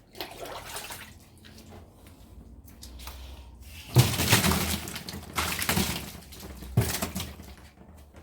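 Handling and cleaning noises from a small refrigerator: rubbing and rustling, with a sharp knock about four seconds in and another near the end.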